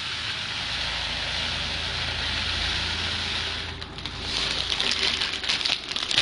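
Plastic poly pellets pouring in a steady rain-like hiss into a nylon stocking, turning into a choppier, uneven rattle after about four seconds.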